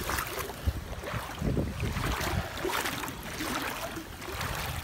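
Flood water sloshing and splashing around legs wading through a flooded street, in uneven surges.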